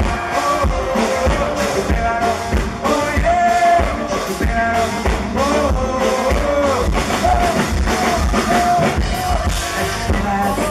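A live rock band playing with a steady drum and bass beat, and a melodic lead line gliding over it without lyrics.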